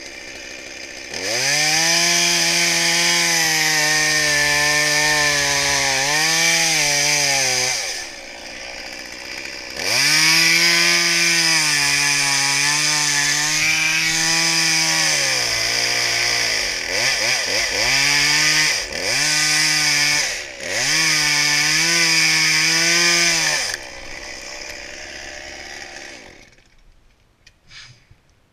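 Two-stroke chainsaw cutting hackberry wood at full throttle, its pitch sagging and recovering under load. It drops to idle about 8 s in and runs again about 2 s later. It then revs in several short bursts before cutting off, with quiet near the end.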